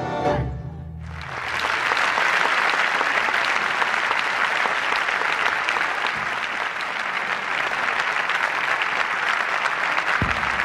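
The final chord of a tango ensemble's bandoneons and double bass dies away within the first second. A large concert audience then applauds steadily.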